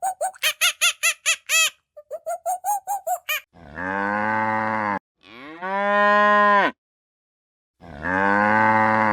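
Cattle mooing three times, each moo a long, low call of about a second and a half. It comes after two quick runs of high, squeaky, rapidly repeated calls, about seven a second, from another animal.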